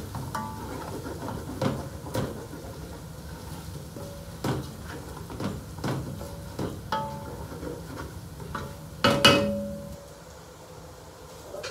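Wooden spatula stirring in a large aluminium stock pot, knocking against its sides at irregular intervals, several knocks leaving a brief metallic ring. The loudest knocks come about nine seconds in, and then the stirring stops.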